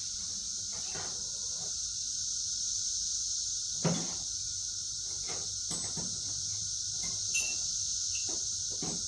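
Steady high-pitched insect chirring, with scattered knocks and clicks of things being handled; the loudest knock comes about four seconds in.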